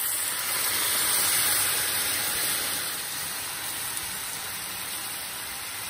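Salmon searing in a very hot grill pan as orange sauce is poured over it: the liquid hits the hot metal and sizzles with a loud hiss that swells about a second in, then eases to a steadier frying sizzle.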